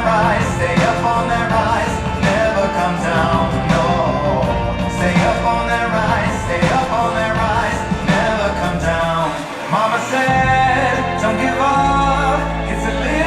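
Show music with a singing voice over a sustained bass; the bass drops out briefly about three-quarters of the way through.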